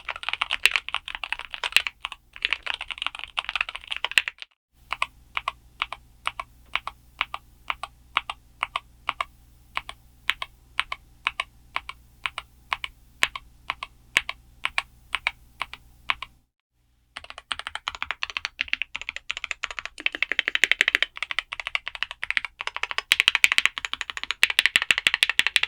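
Typing on a Keychron K2 HE magnetic keyboard with Gateron Double-Rail magnetic switches: a burst of fast typing, then single keystrokes at an even pace of about three a second, then fast typing again after a short break, clacky keystrokes throughout.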